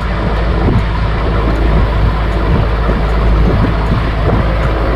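Small motorboat under way: a steady engine drone mixed with a rush of wind and water splashing along the hull.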